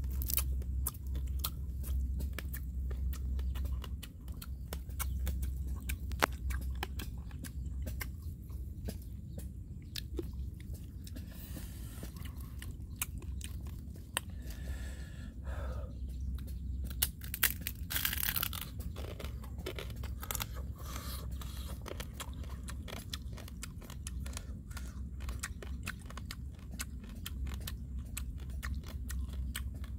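Grilled crab being eaten: the shell is cracked and pulled apart by hand, and the crab is crunched and chewed, giving many small crackling clicks. A steady low hum runs underneath.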